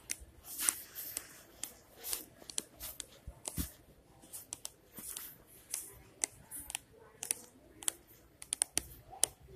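Irregular small clicks and rustles, the handling noise of a phone being carried and moved while filming.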